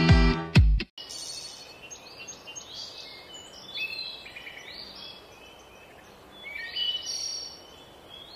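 Guitar music cuts off about a second in, giving way to outdoor background hiss with several small birds chirping in short high calls, busiest in the middle and near the end.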